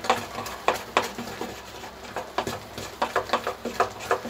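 Thick moong dal batter being beaten and turned by hand in a steel bowl: irregular wet slaps of the hand in the batter, several a second.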